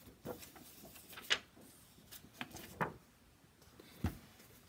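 A sheet of clear planner stamps being handled and turned over: a few short plastic rustles and taps, the loudest about a second in.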